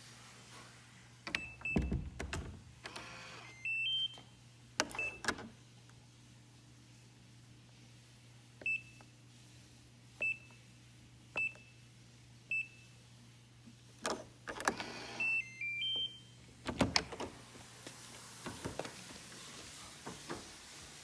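A door being worked, with clicks and knocks of the latch and handle, short high electronic beeps (single beeps spaced about a second apart in the middle, two-tone figures near the start and near the end), and a low steady hum that stops near the end.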